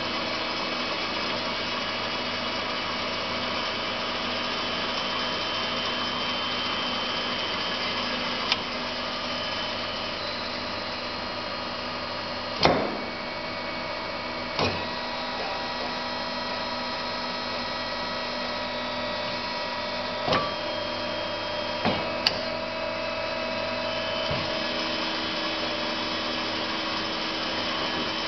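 Steelmaster SM-HBS620HA automatic bandsaw running through a cut. It makes a steady hum with several constant whining tones from the blade drive and hydraulic system. A handful of short, sharp knocks from the machine's mechanism come through, the loudest about twelve seconds in.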